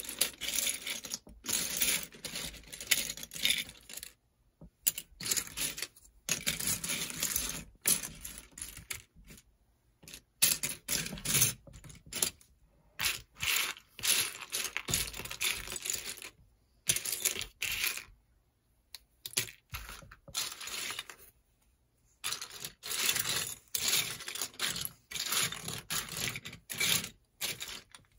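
LEGO sets and their packaging being handled: irregular bursts of rustling, small plastic clicks and clatters, with short pauses between them.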